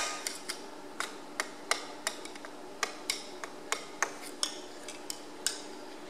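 Ball-peen hammer tapping a screwdriver wedged against a thin cylinder liner in a cast-iron Perkins three-cylinder diesel block: about twenty light metallic strikes at an uneven pace, the first the loudest. This is the screwdriver method of collapsing the liner so it can be pulled from the bore.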